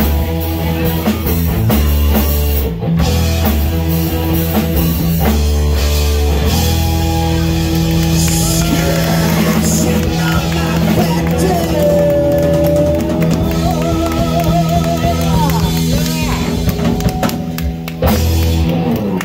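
Live rock band playing loudly: electric guitar, bass guitar and drum kit, with a lead guitar note bending in pitch a little past the middle and the song closing out at the very end.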